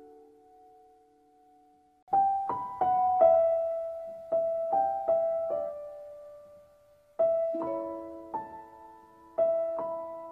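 Background piano music: a slow, simple melody of single notes that strike and fade away. It thins out to almost nothing in the first two seconds and pauses briefly before picking up again.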